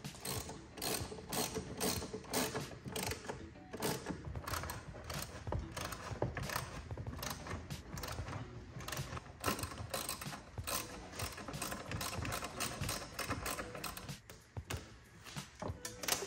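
Hand tools clicking and rattling against fittings and trim in a car's trunk: a run of irregular sharp clicks, a few a second.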